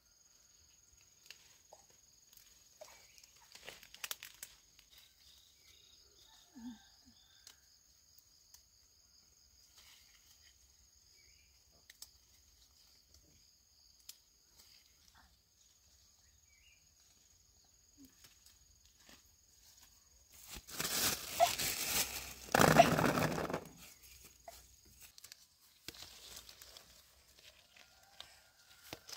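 Leaves and branches of a fruit tree rustling as fruit is picked by hand, with small scattered snaps and a loud rustling burst of about three seconds about two-thirds of the way in. A steady high-pitched insect drone carries on behind.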